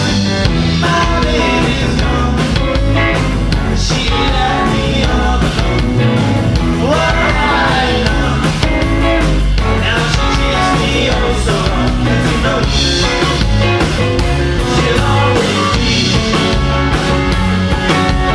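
Live rock-and-roll band playing, with electric guitar and a drum kit with cymbals.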